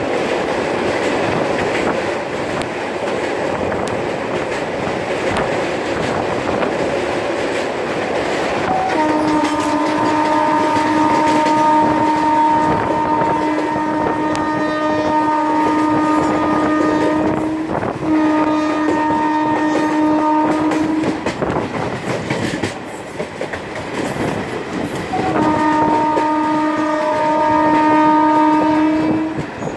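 Passenger train running at speed with steady wheel rumble and clickety-clack, heard from a coach. Its old WAM electric locomotive sounds long, steady blasts on its air horn: one from about nine seconds in, with a brief break, lasting some twelve seconds, and another near the end.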